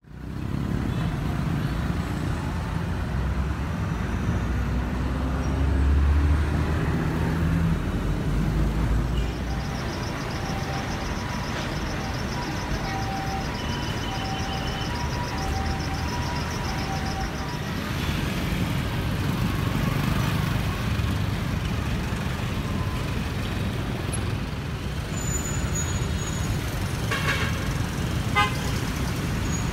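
Busy street traffic: motor vehicle engines running and passing, loudest about six seconds in, with short horn toots in the middle.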